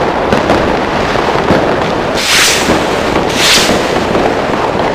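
Fireworks display heard from close to the firing site: a continuous dense crackle of bangs and pops from launching and bursting shells, with two loud hissing rushes about two and three and a half seconds in.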